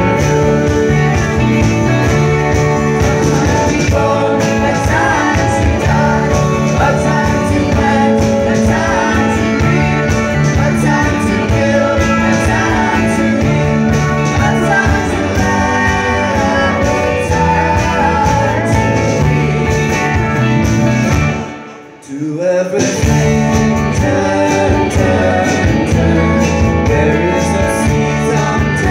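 Live folk-rock band playing, with acoustic and electric guitars, fiddle, drums and tambourine under group singing. About three-quarters of the way through, the sound drops out sharply for about a second, then comes back.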